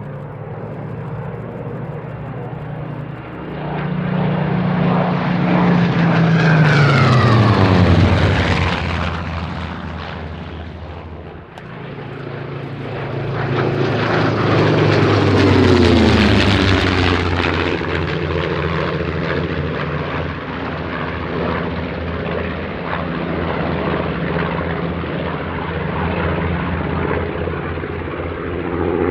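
Piston engines of a Focke-Wulf Fw 190 A-8 (radial) and a Spitfire (V12) in a low display pass, with propeller noise. The sound swells twice, a few seconds in and again past the middle, and each time drops in pitch as the fighters go by.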